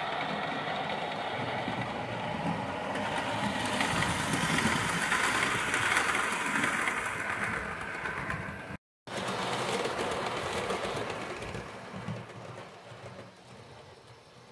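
OO gauge model train running along the track, a rattling rush that grows louder, peaks midway, then fades as the train passes. The sound cuts out briefly a little past halfway.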